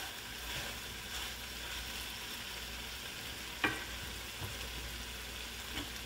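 Chicken breast and sweet pepper strips sizzling steadily in a nonstick frying pan, stirred with a wooden spatula at first. One sharp knock about three and a half seconds in, with a couple of lighter ticks after it.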